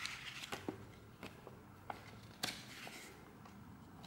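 Paper rustling and crackling as a folded instruction booklet is handled and opened out, with several short, sharp crinkles; the loudest comes about two and a half seconds in.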